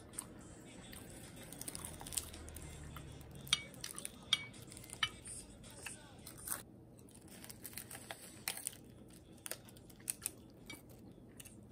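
Scattered light clicks and clinks of cutlery against dishes, irregular and sparse, a few louder taps a few seconds in.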